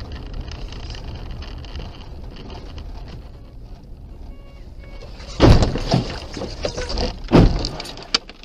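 Dashcam car on a snowy road: steady road and engine rumble heard from inside the cabin, then a collision with loud crashing impacts about five and a half seconds in and again two seconds later.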